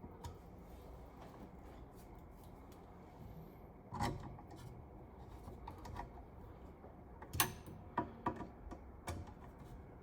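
Scattered light clicks and knocks of metal and plastic parts being handled while blades are fitted to a ceiling fan. One sharper knock comes about four seconds in, and a quick run of clicks comes in the last few seconds.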